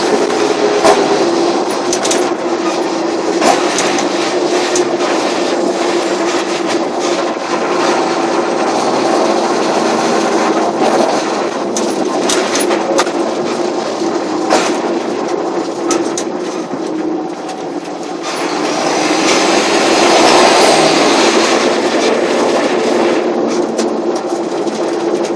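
John Deere 7530 tractor's turbocharged diesel running steadily under way with its turbo whistling, over frequent clanks and rattles. It swells louder for a few seconds about three quarters of the way through, then eases back.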